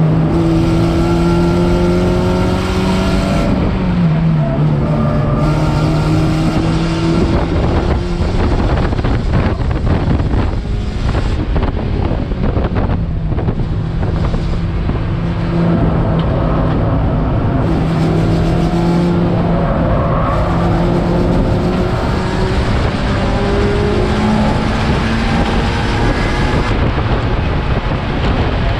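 Race car engine running hard under racing load, with road noise underneath. Its pitch drops sharply about four seconds in and climbs again. For a few seconds in the middle the engine tone gives way to rough rattling noise, and then the engine runs steadily again.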